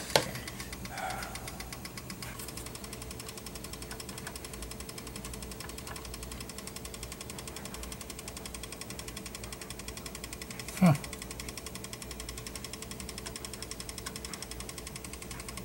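Powered-on cassette deck giving a steady, fast, even mechanical ticking buzz over a low hum, with a couple of clicks at the start and one louder short sound falling in pitch about eleven seconds in.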